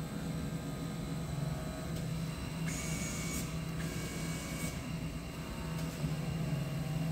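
Automatic CNC fabric-cutting machine working on a vacuum table: a steady low hum with the whir of the cutting head travelling along its gantry. Short hisses break in about three seconds in and again near four and a half seconds.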